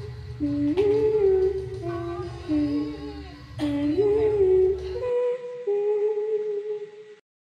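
Background music: a hummed vocal melody moving in held, stepping notes over a low accompaniment. The accompaniment drops out about five seconds in, and the music stops about two seconds later.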